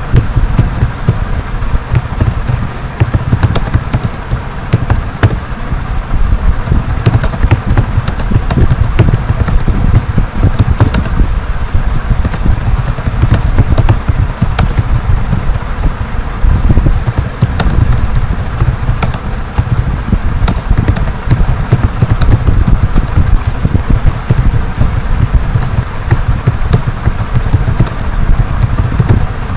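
Typing on a computer keyboard: a fast, uneven run of keystroke clicks over a steady low rumble.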